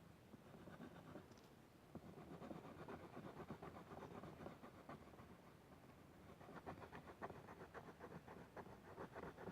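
Colored pencil scratching on paper in quick back-and-forth shading strokes, several a second, growing denser and stronger in the second half.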